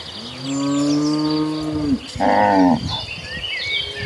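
Cattle mooing: one long, low moo that drops in pitch as it ends, then just after two seconds in a shorter, louder, higher moo.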